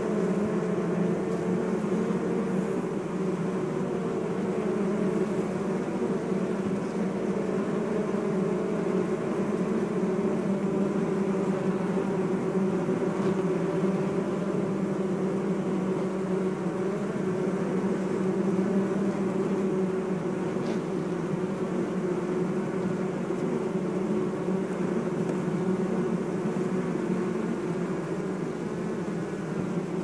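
Steady hum of a honeybee colony buzzing on its combs inside the hive, a dense low drone with a wavering pitch.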